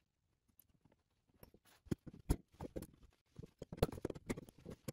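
Light, irregular metal clicks and taps as brass compression fittings on a copper line are handled and tightened with an adjustable wrench and pliers. The sound is nearly silent for about the first second and a half.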